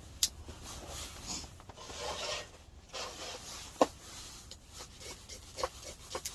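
Wood being scraped and shaved to make kindling, rasping strokes mixed with several sharp knocks.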